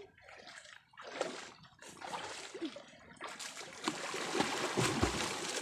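River water splashing and sloshing as a swimmer kicks and strokes and a wet cast net is pulled up out of the water. It is patchy at first and becomes louder and continuous in the second half.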